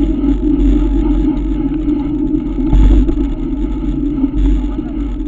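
Steady rumble of a mountain bike rolling on a paved road, picked up by a camera mounted on the bike, with one louder bump a little under three seconds in.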